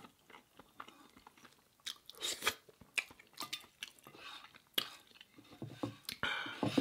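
Close-miked chewing and wet mouth sounds of someone eating curry with bread, with scattered sharp clicks, a louder burst about two seconds in and another near the end.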